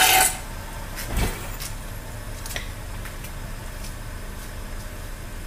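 Car engine idling steadily, with one brief rise in engine speed about a second in. A short, loud burst of handling noise comes right at the start.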